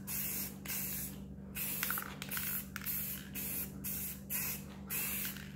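Aerosol spray can of matte black paint hissing in short bursts, about two a second, laying a light first coat on metal mini bike rims.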